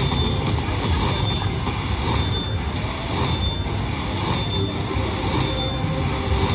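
Bao Zhu Zhao Fu Red Festival slot machine's bonus-payout sounds: a bright ringing strike about once a second as each prize is collected and the win meter counts up, over a steady casino background din.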